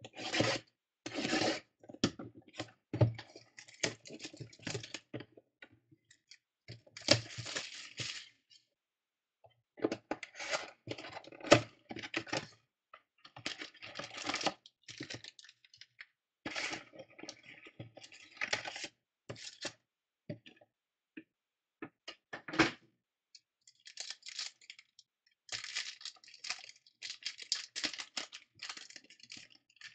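Cardboard box of 2014 Panini Elite football cards being opened, then packs torn and cards handled: intermittent rustling, tearing and sharp clicks, broken by short quiet gaps.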